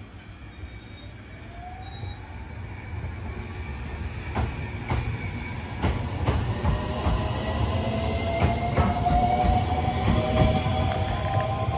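JR-type 521 series electric multiple unit pulling away from a station: the traction motors whine in a tone that rises in pitch as it accelerates, growing louder as the cars pass close by, with sharp clicks of the wheels over the rail joints from about four seconds in.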